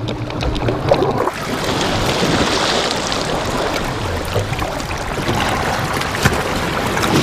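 Sea surface noise: waves washing and splashing in a steady rushing hiss, with a few faint clicks.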